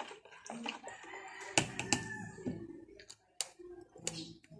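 A rooster crowing once, a drawn-out call starting about a second in, mixed with sharp clicks and knocks from a plastic bottle and spoon being handled over a plastic bowl.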